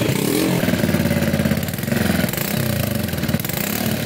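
Motorcycle engine idling, its exhaust passing a homemade valve made from a carburettor choke butterfly worked by an electric door-lock actuator. The exhaust note shifts briefly about halfway through as the valve is switched.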